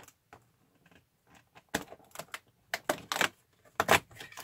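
A cardboard advent calendar door being worked open by hand: irregular clicks, taps and rustling of card, sparse at first and denser and louder in the second half.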